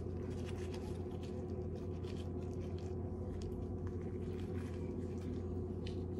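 Raw chicken thighs being turned over and seasoned by hand: light scattered ticks and soft handling sounds over a steady low hum.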